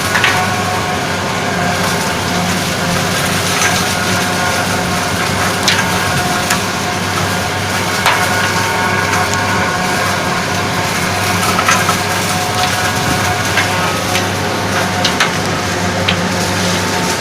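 Tractor-driven silage harvester running steadily under load, the engine holding a constant hum while the chopper crunches crop, with irregular sharp cracks throughout.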